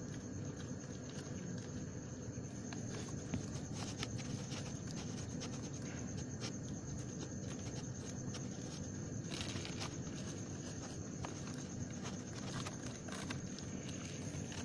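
Scattered small clicks and scratches of a kitten's claws on the floor of a cardboard box, more frequent from a few seconds in, over steady background noise.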